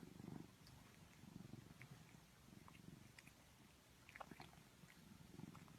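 Faint domestic cat purring, rising and falling in soft low swells about once a second, with a few tiny clicks about four seconds in.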